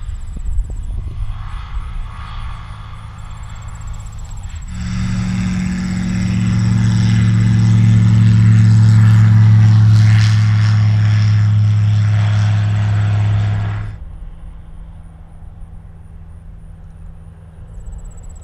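Light single-engine bush plane on a grass strip: the engine is quiet at first as the plane touches down, then from about five seconds in it runs loud and steady at high power for a takeoff run and climb-out. The drone drops away suddenly near the fourteen-second mark.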